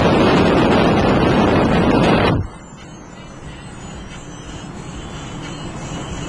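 Loud rushing wind and road noise of a car at highway speed. About two and a half seconds in it drops off sharply to a much quieter, steady hum of the moving car, which slowly grows louder.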